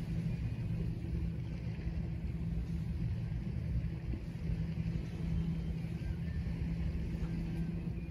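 Steady low engine hum at one unchanging pitch, over a low rumble.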